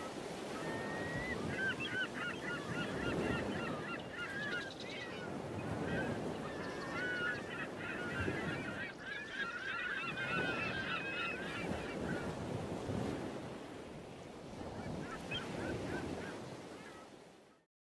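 A flock of birds calling, many short overlapping calls, over the low noise of wind and sea. The calls thin out after about twelve seconds. The whole sound fades out at the very end.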